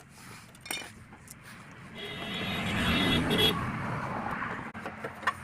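A motor vehicle passing by: its noise swells about two seconds in and fades away, after a single click about a second in.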